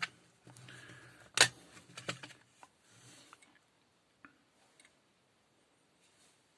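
Plastic clamshell housing of a Black & Decker 14.4 V cordless drill being pulled apart by hand, its press-fit halves coming away. A few sharp plastic clicks and snaps come in the first two seconds, the loudest about a second and a half in, with soft handling rustle between them; after that only a couple of faint ticks.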